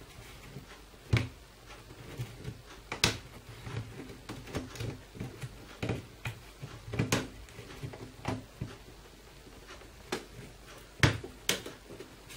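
Plastic clips of a Dell Latitude E7250 laptop case clicking and snapping as the case is pried apart with a pry tool. About seven sharp clicks come at irregular intervals, with soft scraping and handling in between.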